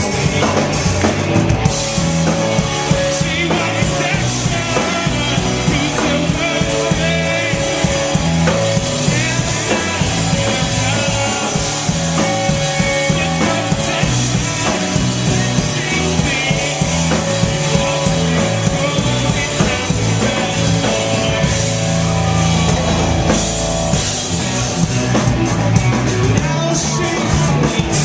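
Rock band playing live, with a drum kit and guitars, at a steady loud level.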